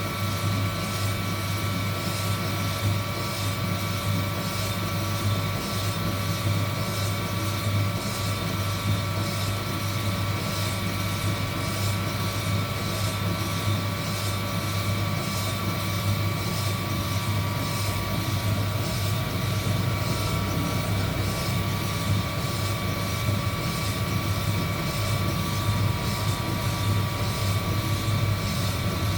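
Heat gun running steadily while roasting coffee beans: its blower fan drones with a low hum and several steady whining tones over a hiss. A faint, even pulsing runs through the hiss.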